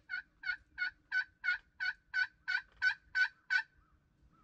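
Wild turkey yelping: a run of about eleven evenly spaced notes, about three a second, growing louder and stopping about three and a half seconds in.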